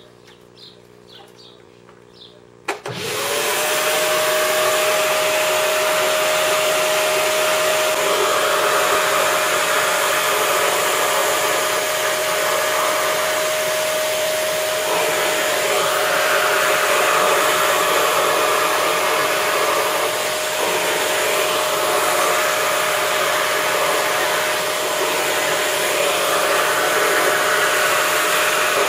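Vacuum cleaner switched on about three seconds in: the motor spins up within a second to a steady whine over loud rushing air, which changes in tone from time to time as the hose nozzle draws in hair.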